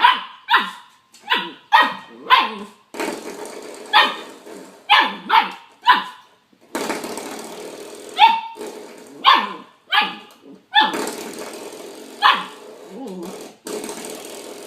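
Dog barking: about fourteen short, sharp barks, some in quick pairs, while the background noise changes abruptly several times.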